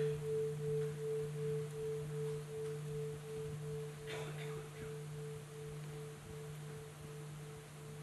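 A large meditation bowl bell ringing out and slowly fading after being struck, its low tone wavering in a steady pulse about two and a half times a second.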